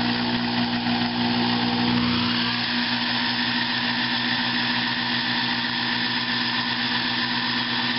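Metal lathe running steadily while turning a venturi sleeve held in its chuck: a constant machine hum with a hiss of cutting and gear noise over it.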